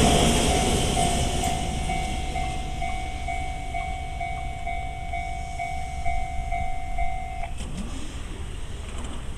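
Japanese level-crossing electronic warning bell with the JR East Tohoku-type tone, ringing in steady repeated dings while the rumble of a passing Jōshin Electric Railway train fades away. The bell cuts off about seven and a half seconds in, leaving a few faint clicks.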